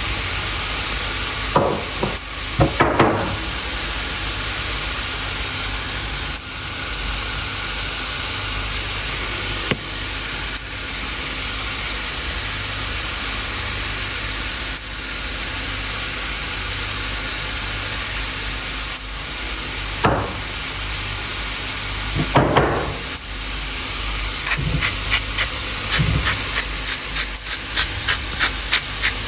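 Turkey frying in a pan: a steady sizzle over a low hum, with a few scrapes of a utensil and a run of quick crackles near the end.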